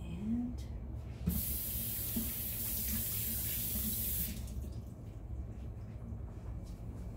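Water running from a kitchen tap for about three seconds, starting and stopping abruptly.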